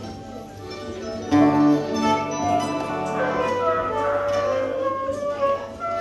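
A small church ensemble of acoustic guitar, accordion and other plucked strings playing a hymn, with held notes moving from pitch to pitch. The music fills out and gets louder about a second and a half in.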